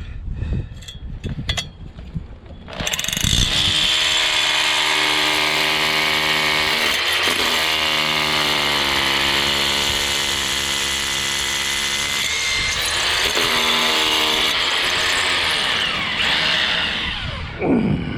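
Makita rotary hammer drilling a hole into concrete. It starts about three seconds in after a few handling clicks, runs loud and steady under load with brief dips in pitch, then spins down near the end.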